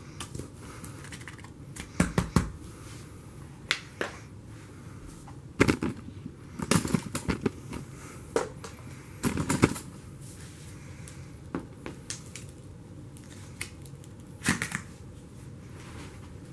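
Plastic containers and lids being handled and set down on carpet: irregular sharp clicks and knocks, some in quick clusters, the loudest about two, six to seven and nine and a half seconds in.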